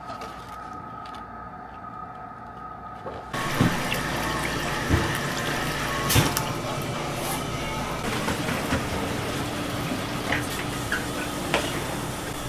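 Tap water running hard into a stainless steel sink and splashing over bagged chicken wings, cutting in suddenly about three seconds in after a quiet stretch, with a few knocks along the way.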